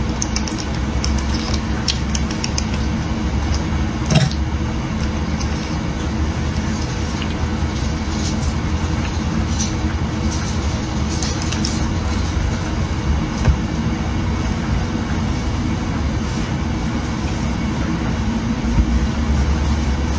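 Steady low hum and hiss of background room noise, with a few faint clicks, one a little louder about four seconds in.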